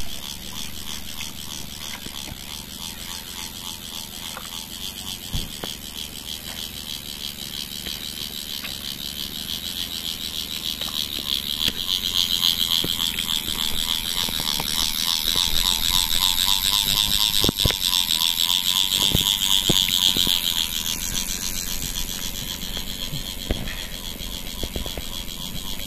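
Outdoor ambience with a steady, high-pitched pulsing chorus that swells louder through the middle and then fades back, with a few faint knocks.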